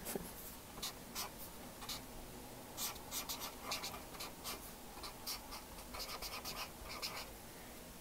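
Black felt-tip marker writing on paper: a run of short, irregular pen strokes with brief pauses between letters.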